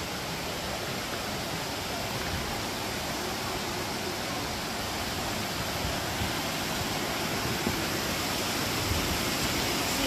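Steady rush of a small mountain creek cascading over rocks and fallen logs, growing slightly louder towards the end.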